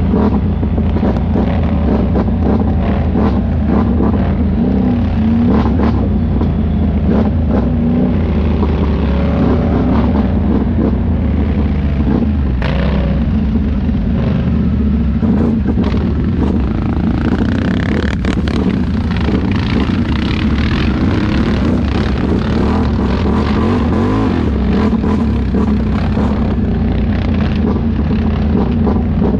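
ATV engine running on a trail ride, its revs rising and falling, with a rise about two-thirds of the way through, and many short knocks over the engine note.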